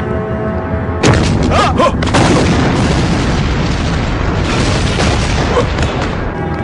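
Film sound effect of a gas-cylinder explosion: a sudden loud blast about a second in, followed by several seconds of dense blast noise that eases off near the end, over background music.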